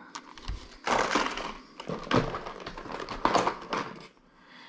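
Plastic tackle packages being handled and set down on a wooden table: crinkling and clacking of blister packs in several irregular bursts, the strongest about one, two and three seconds in.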